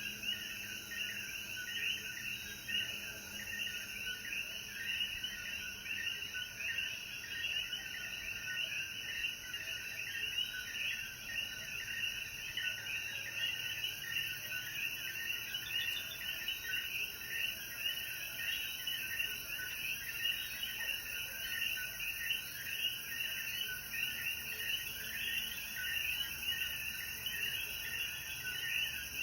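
Chorus of many common coquí frogs calling, their short 'co-quí' notes overlapping without a break, over a steady high hiss.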